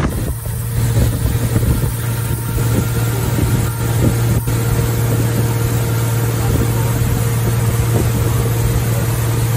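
Powerboat engine running steadily at speed, a constant low drone, over the rushing noise of the wake and wind.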